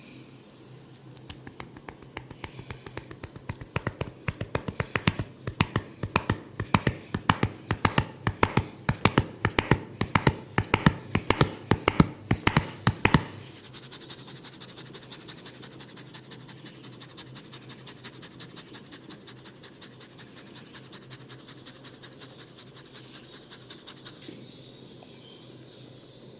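Hands tapping rapidly on a person's head during a barber's head massage, about five sharp strikes a second and growing louder. About halfway through it changes to lighter, faster fingertip scratching of the hair and scalp, which stops near the end.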